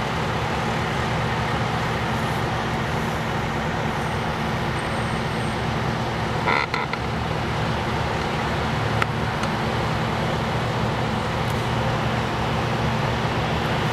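Idling diesel engines of parked fire engines, a steady low drone.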